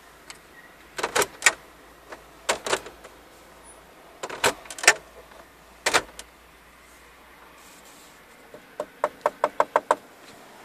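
Fingers knocking on the plastic interior trim of a Volkswagen Passat B6: sharp knocks in small groups of two or three, then a quick run of about seven taps near the end.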